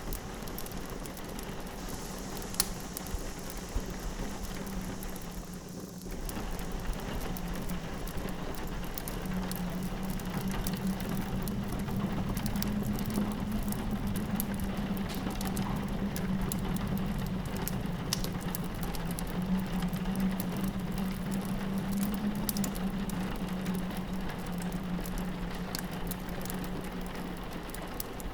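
Rain pattering on a window, mixed with the fine crackle of a log fire and a steady low howl of wind. The whole mix gets a little louder about six seconds in.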